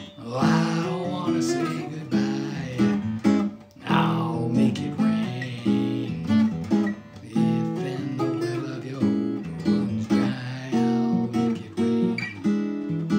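Acoustic guitar played solo: chords strummed and picked in a steady rhythm, a fresh strum about every half second.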